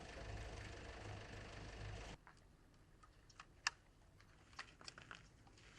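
A vehicle engine idling with a low, steady hum, which cuts off abruptly about two seconds in. It gives way to quiet, scattered light clicks and crackles.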